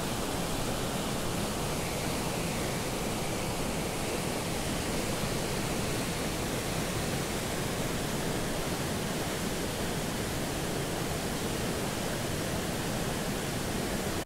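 Waterfall: white water pouring over rocks into a pool, a steady rushing noise that cuts off suddenly at the end.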